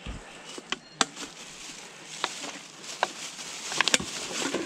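Litter being stuffed into a plastic carrier bag: the thin bag rustles while a plastic bottle and a drink can crinkle and knock against each other, giving a series of sharp clicks and crackles, several of them close together near the end.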